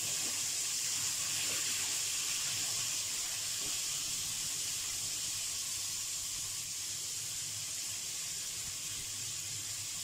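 Raw papaya cubes sizzling steadily in hot oil in a non-stick pan, the hiss easing off slightly over the seconds.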